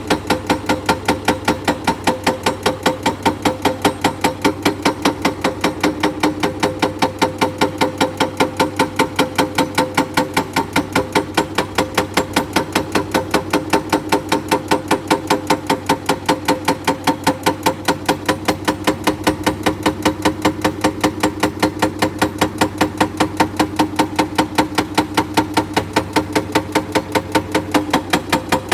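Excavator-mounted hydraulic breaker hammering limestone in rapid, evenly spaced blows, over the excavator's diesel engine running steadily.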